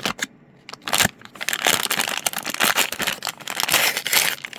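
Plastic packaging crinkling and rustling as it is handled and opened, a dense irregular crackle that starts about a second in.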